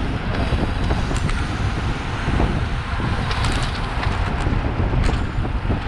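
Wind buffeting the microphone of a camera riding on a racing bicycle in a moving pack, with steady road and tyre rumble and a few sharp clicks.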